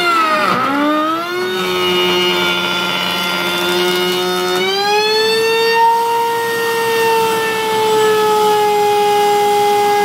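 Table-mounted router running with a loud, high whine. Its pitch drops sharply about half a second in and stays lower for a few seconds as the bit bogs down cutting a hand-hold into a wooden hive-box board. About halfway through the pitch climbs back up as the bit comes free of the wood, then settles.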